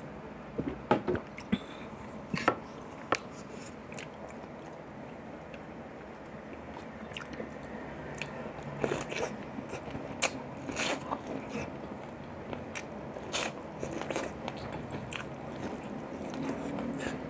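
Close-miked eating sounds: a man biting and chewing a round of boiled corn on the cob, with many short sharp clicks and mouth smacks, a cluster of louder ones in the first few seconds.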